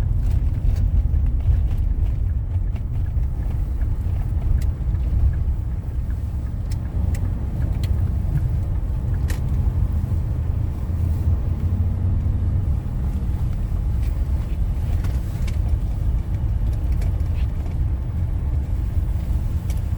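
Road noise inside a moving car on a bumpy road: a steady low rumble of tyres and engine, with scattered faint ticks and rattles.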